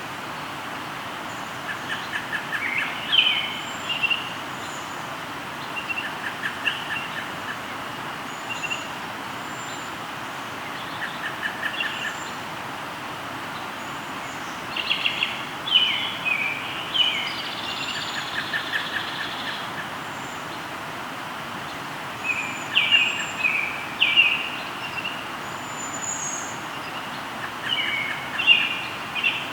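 Several songbirds singing over the steady rush of a flowing river, with song phrases, high thin whistles and short trills coming every few seconds.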